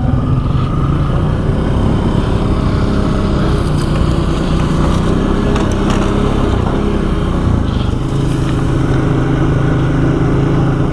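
ATV engine running steadily while riding along a trail, its pitch drifting up and down a little with the throttle.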